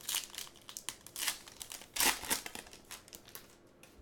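Crinkling and tearing of trading-card pack wrapping as packs are handled and opened, in a run of short crackly bursts that peaks about two seconds in and dies away near the end.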